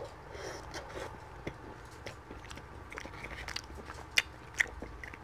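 A person chewing a mouthful of chicken shawarma and rice: a quiet run of small wet mouth clicks, with two sharper, louder clicks about four seconds in.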